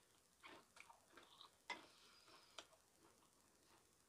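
Faint eating sounds: a person chewing a mouthful of soup and greens, with scattered soft clicks of a spoon and chopsticks on a bowl and two sharper ticks about halfway through.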